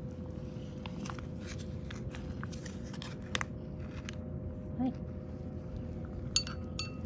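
Cat licking and eating wet food, small wet clicking mouth sounds throughout. Near the end a metal spoon clinks twice against the porcelain bowl, ringing briefly, as the food is scraped out of the pouch.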